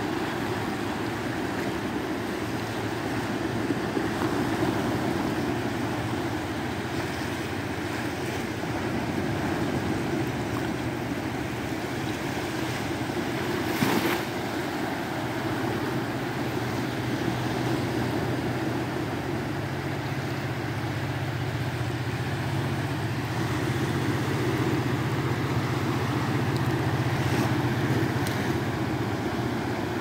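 Small sea waves breaking and washing up over sand, a steady surf noise that swells and ebbs. Under it runs a low engine hum that grows louder in the second half, and there is a brief knock about halfway through.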